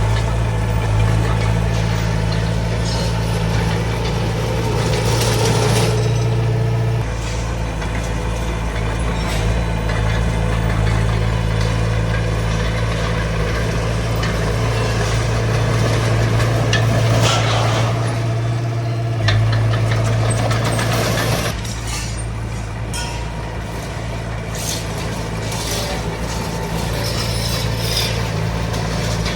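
D20 bulldozer's diesel engine running with a steady low hum, its note changing twice. Brief clanks and scraping come through now and then.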